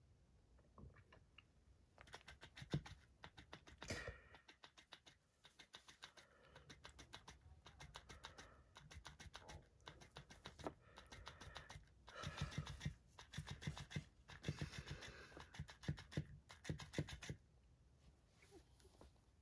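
Cat wrestling with a plush fish toy: quick, rapidly repeating scratching and rustling ticks in bursts, starting about two seconds in and stopping near the end.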